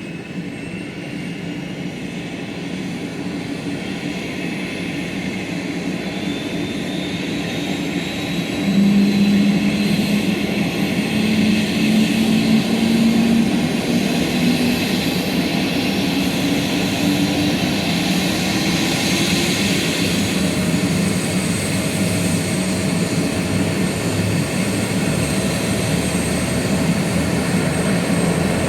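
Helicopter turbine engine spooling up. A high whine slowly rises in pitch while the engine and rotor sound grows steadily louder, stepping up about nine seconds in.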